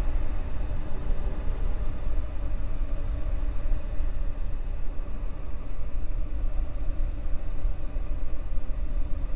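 Steady low rumble, with a faint hum above it.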